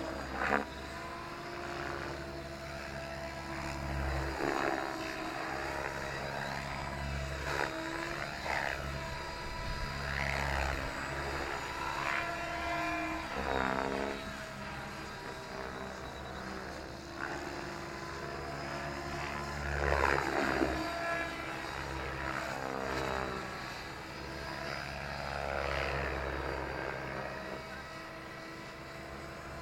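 Radio-controlled 3D helicopter flying aerobatics overhead: a steady motor and rotor whine whose pitch bends as the model swoops and passes, with repeated swells of rotor-blade whoosh during the hard manoeuvres.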